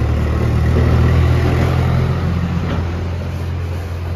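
An engine running at a steady low pitch. It grows a little louder about a second in, then slowly eases off.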